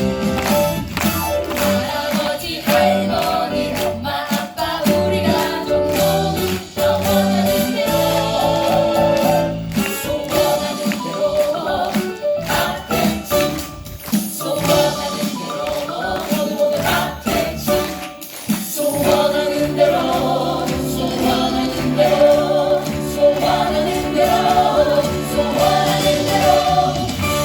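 Musical-theatre ensemble singing an upbeat song over band accompaniment with a steady percussive beat.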